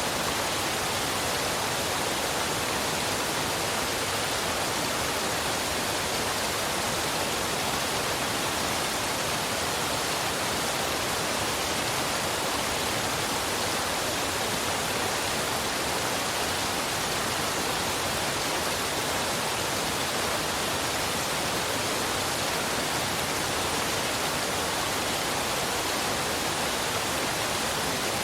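Waterfall and river water rushing: a steady, unbroken hiss with no changes or distinct splashes.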